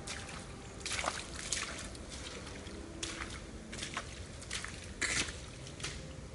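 Footsteps in wellington boots squelching through wet mud and soggy leaf litter, an uneven step every half second to a second.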